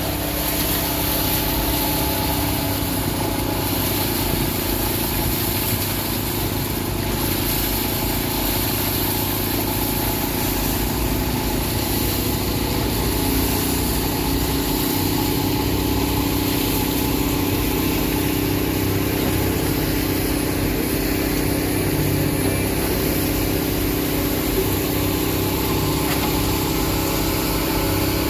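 Heavy diesel engine of concrete-pouring equipment running steadily at a constant speed.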